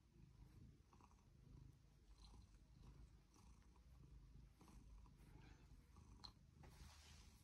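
Domestic cat purring faintly and steadily while being brushed, with soft scratchy strokes of the bristle brush through its fur and a brief louder rasp of the brush near the end.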